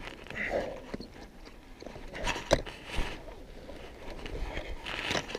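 Scrambling over snow-covered rock: gloves and boots scraping and knocking, clothing rustling, with a few sharp knocks.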